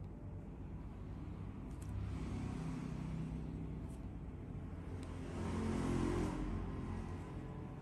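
A road vehicle passing by: a low engine rumble that builds, is loudest about six seconds in, and then fades.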